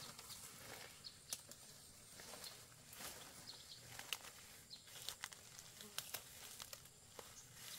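Faint rustling and crackling of fern fronds and undergrowth as someone pushes through dense ferns: scattered, irregular snaps and swishes over a light outdoor hiss.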